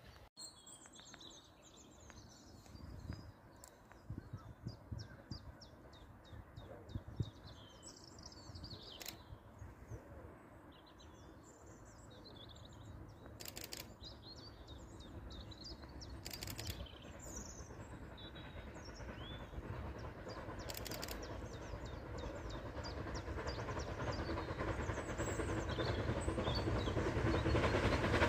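Birds singing, then an approaching steam locomotive running toward the listener, its sound growing steadily louder through the second half.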